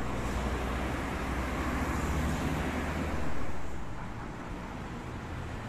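Street traffic noise: a steady low rumble with hiss, swelling briefly about three seconds in.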